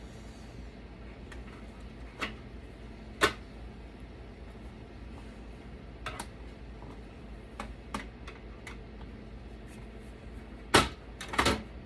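Scattered clicks and knocks of metal parts and a tool being handled inside a desktop computer case while it is taken apart, with a louder knock about three seconds in and two more near the end, over a low steady hum.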